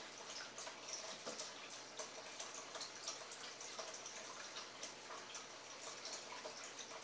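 Faint, irregular small clicks and ticks, several a second, over a low steady hiss.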